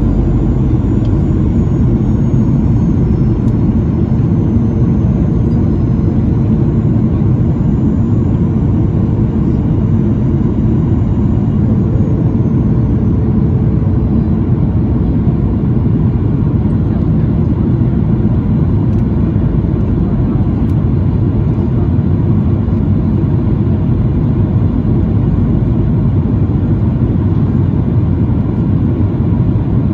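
Steady cabin noise of a Boeing 737-900ER on descent: the low rush of airflow and its two CFM56 turbofans, with a faint high whine that drifts down in pitch over the first dozen seconds.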